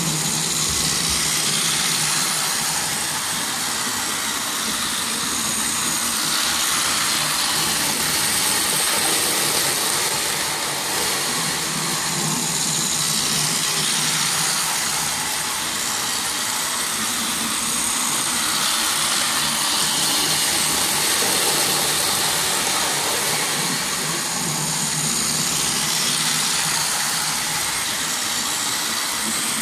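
Motorized toy train running on plastic track: a steady whir of its small electric motor and the rattle of its wheels, swelling and fading slightly as it goes round the loop.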